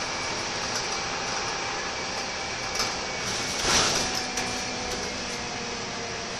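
Cabin noise of a Scania K230UB bus under way, heard from the rear seats over its rear-mounted diesel engine: a steady running hum with road and body noise. A brief louder hiss swells and fades a little past halfway, with a few light rattles.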